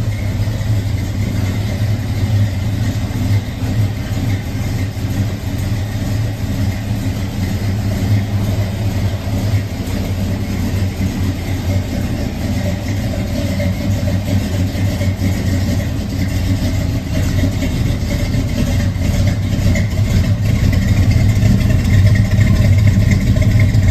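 1970 Chevrolet C-10 pickup's engine idling steadily, a low, even sound that grows louder near the end as the exhaust tailpipe comes close.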